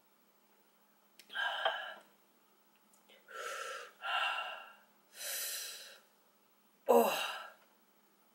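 A woman huffing out hard through an open mouth, five heavy breaths over about six seconds, the last ending in a voiced sigh that falls in pitch. She is cooling a mouth that is burning from spicy noodles.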